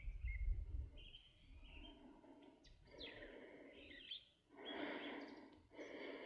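Small birds chirping in short calls. A low rumble fades out about a second in, and in the second half come a run of noisy swishing sounds about once a second.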